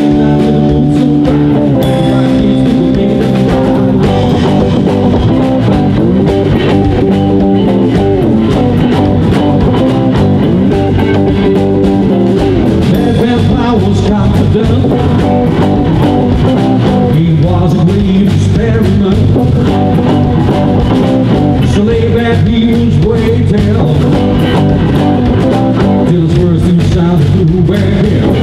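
Live band playing a blues number: electric guitars and drums, with a harmonica played into a vocal microphone.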